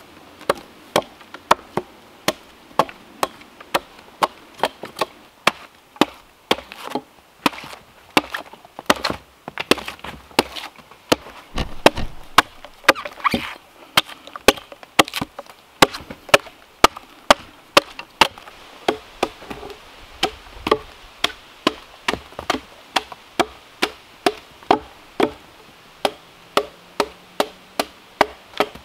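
Hand tool chopping into maple wood in a quick, steady rhythm of about two sharp strikes a second, hewing a block to shape.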